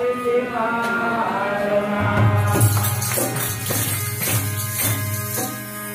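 Live bhajan kirtan music: a man's sung line ends about two seconds in, and a steady low drone comes in under regular drum strokes and jingling hand cymbals.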